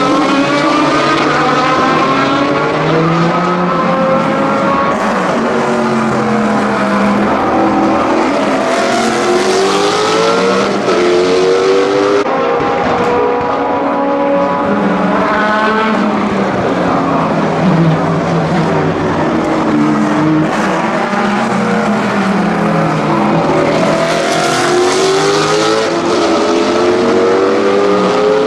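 Aston Martin DBR9 GT1 race cars' 6.0-litre naturally aspirated V12 engines running at racing speed. The engine note climbs and drops again and again through gear changes and braking into corners.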